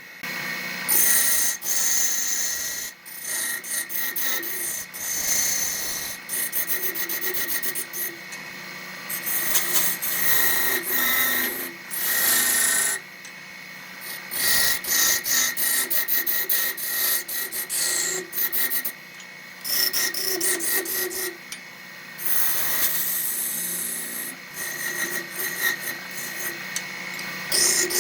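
Wood being worked on a running wood lathe: a tool rasps against the spinning wood in short passes that start and stop every second or two, over a steady faint hum.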